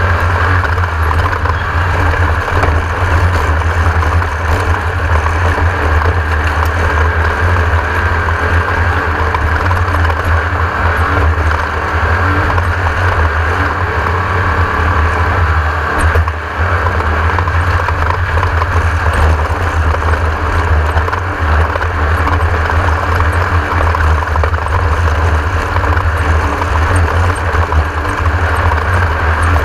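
Class 1600 off-road race buggy's air-cooled Volkswagen 1600 cc engine running hard at speed, heard from on board as a loud, steady drone. The sound drops briefly about sixteen seconds in, then carries on.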